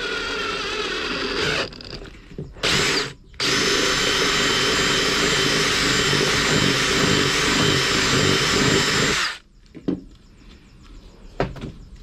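Cordless drill spinning a 3/8-inch bit inside a hole in a plastic sprayer tank, shaving the sides of the hole. It runs for about a second and a half and stops, gives a short burst around three seconds in, then runs steadily for about six seconds before stopping. A few light knocks of handling follow near the end.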